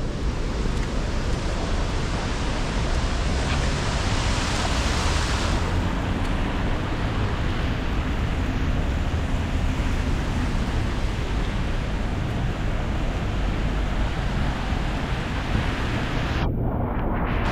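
Steady hiss of rain on a city street with low wind rumble on the microphone. A louder, brighter hiss swells for about a second and a half around four seconds in.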